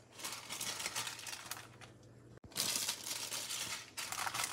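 Plastic boil-in-bag rice pouch crinkling as it is handled and pushed down into a saucepan, in three stretches of crackling.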